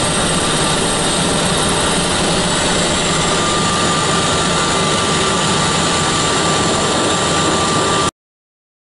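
Hkp 14 (NH90) helicopter's twin turboshaft engines and rotor running, heard inside the cockpit as a steady rush with a few high whining tones. It cuts off suddenly about eight seconds in.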